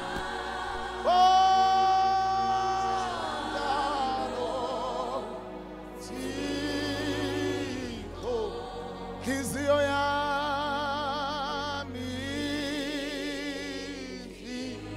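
Slow gospel worship singing: long held sung notes, some steady and some wavering, over a steady low backing.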